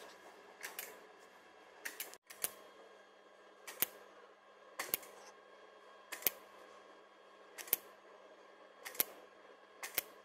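RF microneedle handpiece clicking each time it fires its needles into the skin, a sharp click a little more than a second apart as it is stepped across the face, over a faint steady hum.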